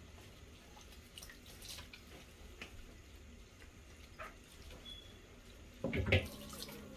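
Thin stream of tap water running into a stainless steel sink as raw chicken pieces are rinsed and handled, with faint drips and small taps. A louder thump about six seconds in.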